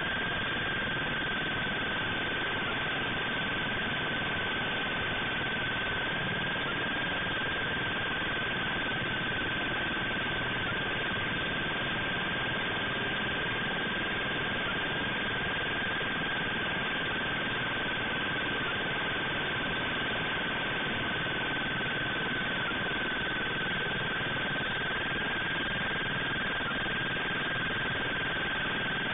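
A single steady high-pitched tone, held unbroken over a constant even hiss.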